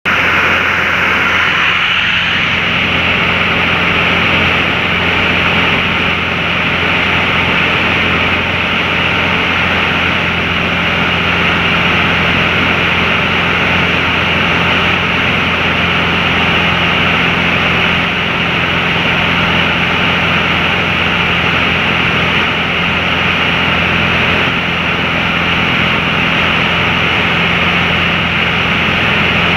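Steady drone of a small plane in cruising flight, heard from inside the cabin: a constant low engine hum under an even rushing hiss.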